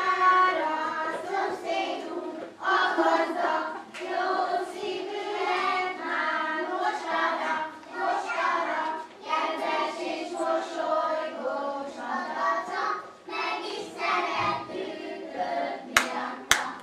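A group of young children singing a song together in chorus, with a few sharp claps near the end.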